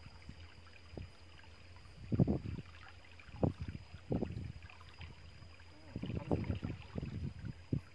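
Water slapping and gurgling against the side of a small wooden boat in a few irregular short bursts, with a cluster in the last two seconds.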